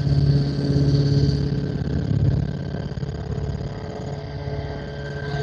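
Helicopter in flight: a steady engine and rotor drone with a fast, even rotor pulse, dropping a little in level partway through and rising again near the end.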